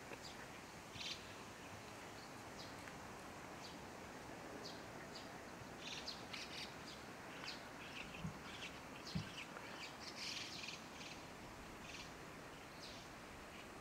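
Small birds chirping on and off in short, high calls, busiest about halfway through, over a steady outdoor hiss. Two soft low thumps come near the middle.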